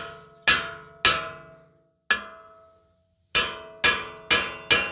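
Hammer blows on a seized rear brake rotor of a 2018 Chrysler Pacifica to break it free from the hub: about eight sharp strikes with a pause of about a second in the middle. The iron rotor rings after each blow.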